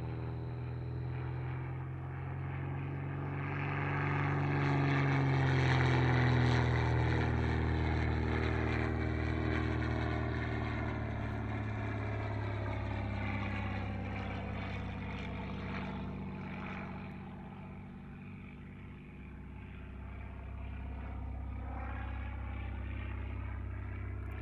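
Zlín Z 526's piston engine and propeller droning as the aerobatic trainer flies its display, the pitch sliding up and down through the manoeuvres. It is loudest about five to seven seconds in as it passes closest, fades away in the later part, and swells again near the end.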